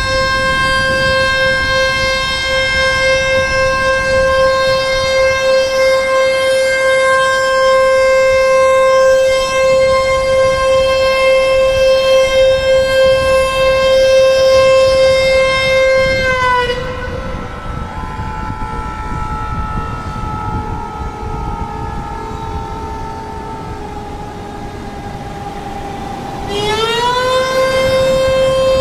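Dam discharge warning siren, warning that water is being released. It holds a steady high tone for about sixteen seconds, then drops and slides slowly lower for about ten seconds, then rises back quickly to full pitch and holds.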